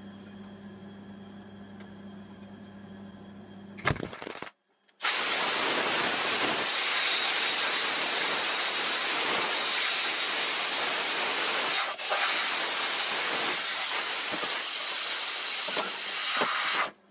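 A compressed-air blow gun hisses loudly and steadily for about twelve seconds, with a brief break midway, as it blows onto a fresh tack weld on the steel bearing housing to cool it. It starts about five seconds in, after a faint hum and a single knock.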